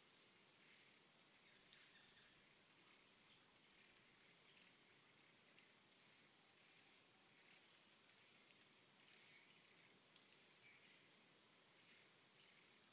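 Near silence, with a faint, steady high-pitched drone of insects.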